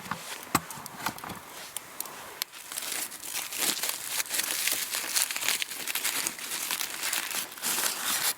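Aluminium foil crinkling as it is unwrapped from a campfire-roasted sweet potato: a few sharp crinkles at first, then continuous crinkling from about two and a half seconds in.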